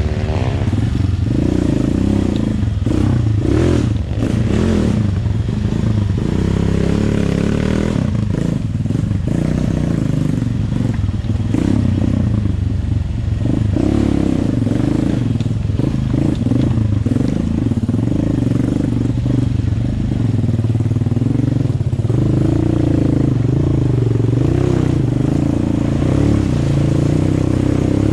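Trail motorcycle engine running under load, its revs rising and falling as it picks its way over a rocky streambed, with a few clattering knocks about three to five seconds in.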